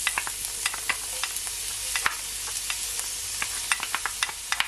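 Chopped onion frying in olive oil in a cast-iron pan over low-to-medium heat: a steady sizzling hiss with frequent small crackling pops. Near the end, a wooden spoon starts stirring the onion.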